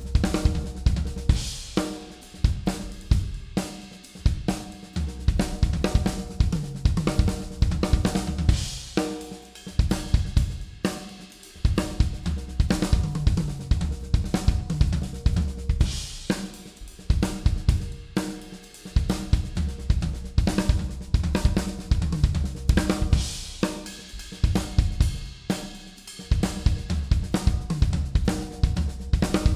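Acoustic drum kit played continuously: a groove on kick, snare and hi-hat broken by multi-bar fills built from right-left-left-kick and right-left-kick sticking patterns moved around the toms, snare, hi-hat and cymbals.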